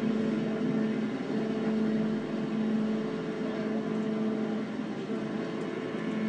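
A steady mechanical drone holding one low pitch, with a steady hiss behind it.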